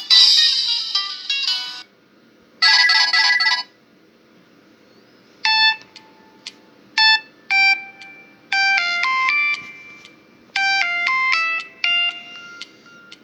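Samsung U900 Soul phone ringtones and alert tones, played one after another. A short, bright polyphonic jingle is followed about two seconds later by a second short jingle. Then comes a sparse synthesized melody of separate notes in short phrases with pauses between them.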